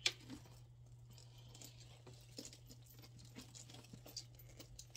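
Faint handling noises: light rustling and scattered small clicks as a purse and its plastic and paper packaging are moved about, with one sharp click right at the start, over a low steady hum.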